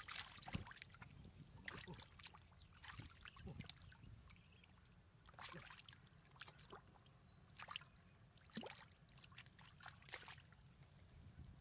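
Faint, scattered splashes and sloshing of hands working through shallow muddy water, coming irregularly every second or so.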